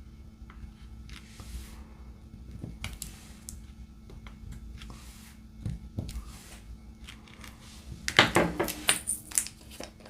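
Small plastic clicks from diamond-painting work: faint scattered taps, then a loud flurry of clicking and rattling about eight seconds in, like resin drills shaken or poured in a plastic container.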